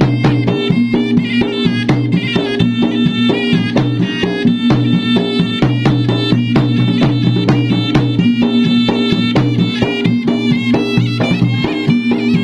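Traditional Maros (Bugis-Makassar) gendang drums beaten in a fast, continuous rhythm, with a reedy wind instrument playing a melody over the drumming.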